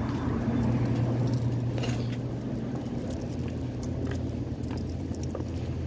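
A few light metallic jingles of loose coins being carried, over a steady low hum.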